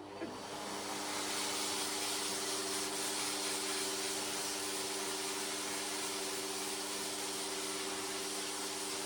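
Dog grooming force dryer (high-velocity blower) running steadily: a strong rush of air over a motor hum. It builds up over about the first second, then holds level.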